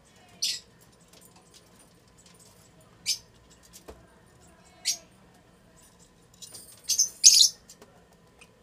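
Lutino Fischer's lovebirds giving short, shrill, high-pitched chirps, about five spread out. The last two come in quick succession and are the loudest.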